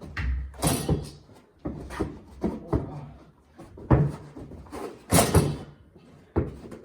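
Irregular thuds and bangs of a basketball game in a small room: the ball bouncing on a hard floor and knocking against the hoop, with one sharp bang about four seconds in.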